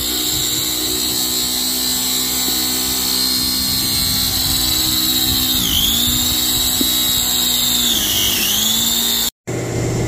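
Compressed air hissing and whistling through an air filter cleaner wand as it blasts dust out of a tractor's outer air filter element. The steady whistle dips in pitch twice in the second half, then cuts off abruptly near the end.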